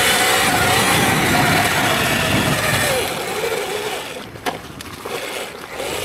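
Electric dirt bike's motor whining under power over a loud rushing noise, then easing off about three seconds in as the whine falls and the level drops. A single sharp click about a second and a half later.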